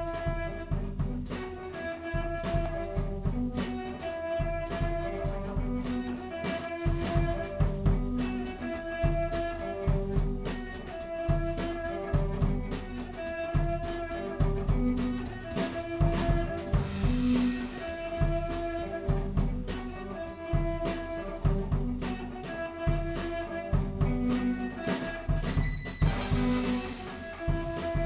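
Instrumental music with drums, bass and a repeating melodic phrase over a steady beat.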